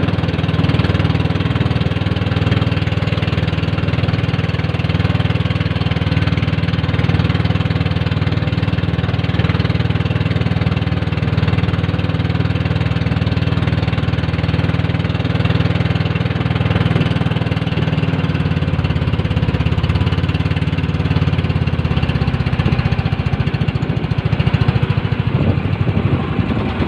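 A small fishing boat's engine running steadily at a constant speed. About 22 seconds in it slows to a lower, pulsing beat, with the separate firing strokes audible.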